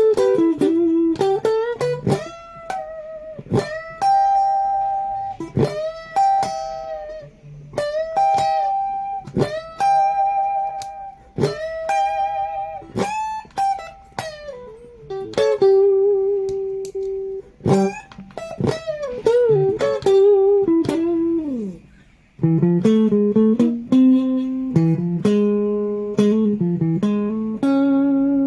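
Electric guitar played through a Maxon CP-101 compressor pedal: single picked notes that ring on with long sustain, some bent, then repeated chords in the last third.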